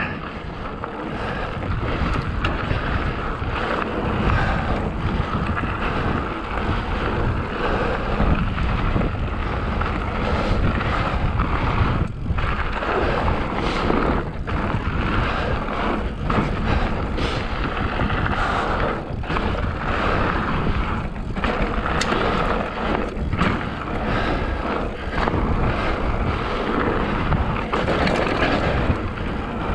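Hardtail mountain bike riding over a rough trail, its tyres rumbling over the ground, with heavy wind buffeting on the microphone.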